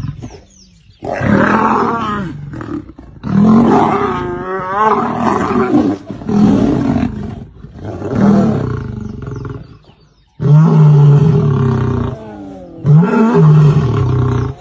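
Lions roaring in a series of about six loud calls, each one to two seconds long, with short pauses between them.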